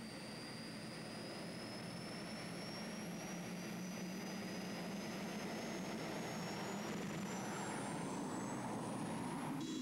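Mini-puller pulling tractor's engine running with a high whine that slowly climbs in pitch over a steady low rumble, growing gradually louder.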